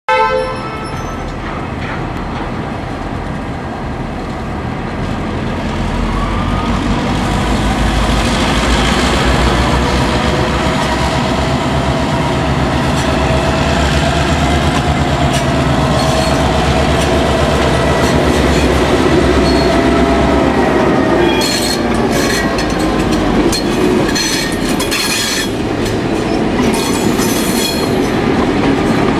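Diesel-electric freight locomotives X45, G533 and T409 of an oil train approaching and passing at low speed: a deep engine rumble with whining tones that slowly rise and fall, then from about two-thirds through a run of sharp wheel clicks and squeals as the locomotives roll by.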